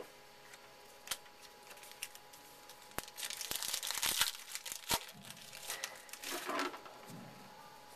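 A baseball card pack's wrapper crinkling as it is torn open, with a few sharp clicks and a dense crackling stretch about halfway through, then softer rustling of cards being handled.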